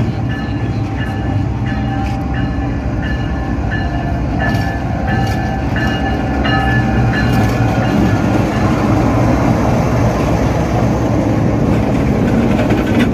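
Diesel locomotive hauling a passenger train into a station, its engine drone growing louder over the second half as it draws up close. During the first half a series of short high tones repeats about every half second.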